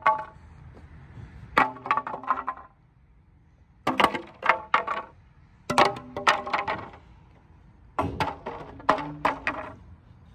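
Metal clattering and clinking in four short bursts of sharp knocks that ring briefly, as fittings are worked loose and pried at during the interior teardown.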